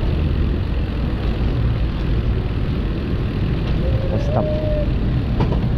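Wind buffeting the microphone and road and traffic noise during a bicycle ride on a busy street: a loud, steady low rush.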